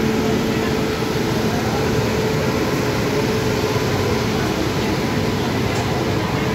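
Indian Railways WAP-7 electric locomotive passing close by on the near track: a steady mechanical hum with the noise of its wheels on the rails.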